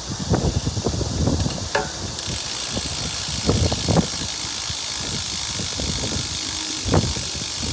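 Road bicycle being ridden: a steady rush of tyre and wind noise with scattered small clicks and knocks. The rush grows brighter about two seconds in.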